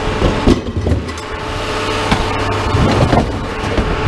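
An engine running steadily, with several short knocks and clanks scattered over it.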